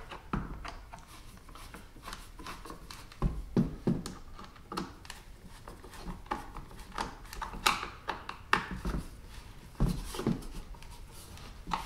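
Hard plastic housing of a pet dryer being screwed back together and handled: a screwdriver turning a screw, with scattered irregular clicks, taps and light knocks of plastic parts.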